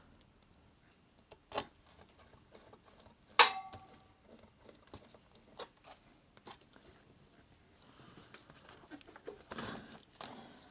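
Scattered small clicks and taps of tiny laptop screws and a screwdriver as the laptop's bottom cover is screwed back on. A sharp click about a second and a half in, and a louder one about three and a half seconds in with a brief ring, and a soft rustle near the end.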